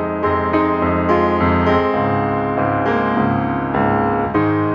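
Background piano music: a steady run of struck notes over a held low tone.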